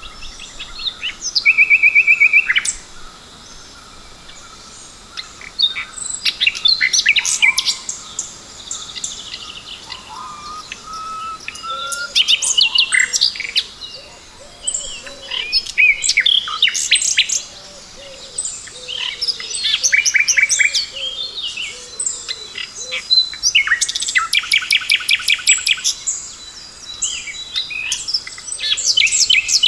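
Several wild birds chirping and singing at once, with overlapping calls that include short chirps, quick sweeping notes and fast, even trills. The calls come in bursts with brief lulls between them.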